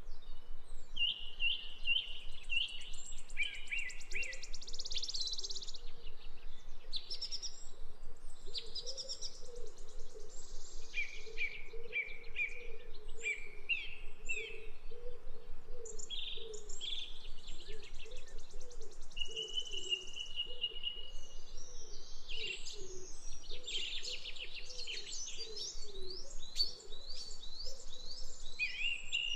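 Several small songbirds singing and chirping in quick, varied phrases and trills, one after another, with a faint, steady pulsing call lower down.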